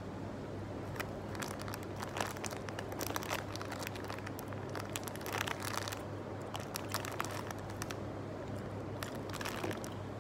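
A crunchy Fox's Crunch Creams oat biscuit being chewed, with its plastic packet crinkling in hand: irregular bursts of crackly clicks over a steady low hum.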